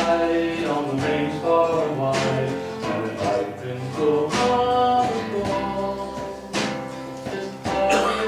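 Small acoustic country band playing live: strummed acoustic guitar and other plucked strings over bass and light drums, with a sustained melody line on top.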